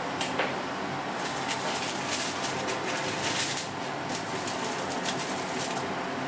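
Bacon-wrapped asparagus frying in a pan, the fat crackling and spitting densely for several seconds, over a steady low hum.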